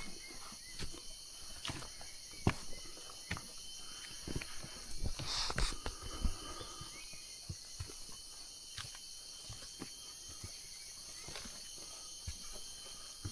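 Footsteps on a jungle trail, roughly one step a second, over a steady high-pitched drone of rainforest insects. About five seconds in there is a short louder rustle.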